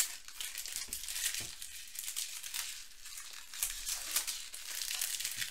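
Baseball card pack wrappers crinkling and tearing as the packs are opened and the card stacks pulled out, a continuous run of small crackles.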